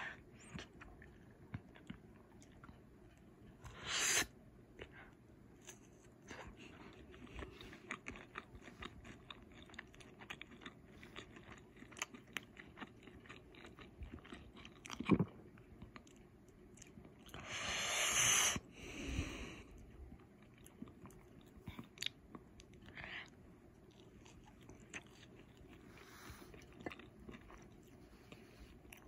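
A person chewing breaded chicken strips dipped in ketchup close to the microphone: crunching and wet mouth clicks throughout. A short rush of noise comes about four seconds in, a thump near fifteen seconds, and a longer, louder rush around eighteen seconds.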